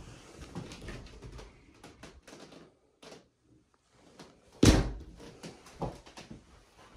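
Metal-framed frosted-glass shower door being handled and swung, with rattling, then a sharp loud bang a little past halfway through and a smaller knock after it.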